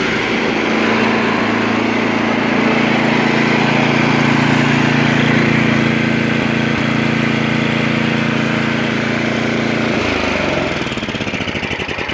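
Tecumseh Snowking single-cylinder snowblower engine running steadily at raised throttle, then its speed drops away about ten seconds in.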